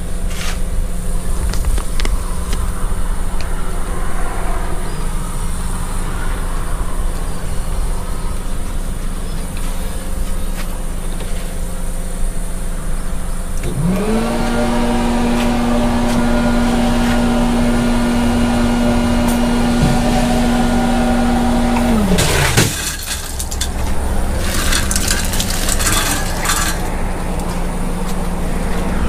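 Vehicle engine running steadily. About halfway through, a motor whine rises quickly, holds one pitch for about nine seconds, then winds down. A few seconds of rustling and clattering follow.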